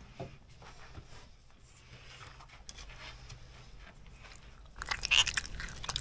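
A person eating from a paper plate with a fork: faint clicks and quiet chewing, then louder close-up chewing and crunching near the end.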